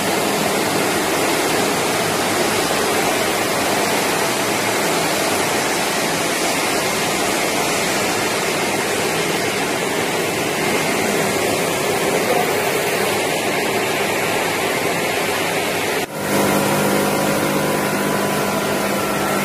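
Banana chip production-line machinery running with a steady, loud hiss. About sixteen seconds in the sound cuts abruptly to a steadier machine hum with a few held tones, at the rotating seasoning drum.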